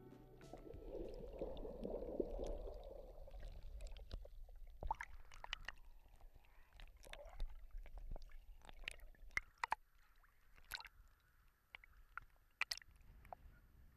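Sea water sloshing and gurgling around a GoPro camera housing bobbing at the surface: a muffled underwater wash for the first few seconds, then scattered sharp ticks and splashes as small waves break over the case.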